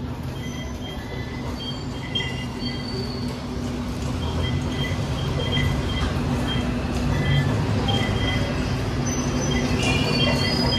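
Busy light-rail station at the fare gates: a steady low hum from an LRT-1 train standing at the platform, with a crowd passing through and many short electronic beeps from the gates. It grows louder about halfway through.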